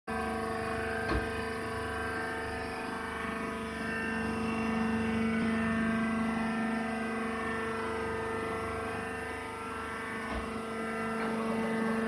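Hydraulic baler's power unit (electric motor and hydraulic pump) running with a steady hum and whine. Two dull knocks, one about a second in and another near the end.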